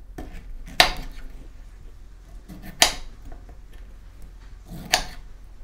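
Chef's knife cutting through pineapple and striking a wooden cutting board: three sharp knocks about two seconds apart.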